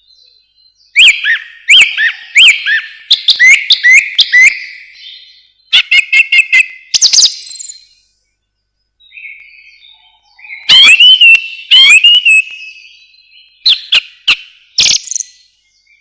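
Song thrush singing: loud whistled and sharp clicking phrases in groups, some phrases repeated two or three times in a row, with short pauses between groups.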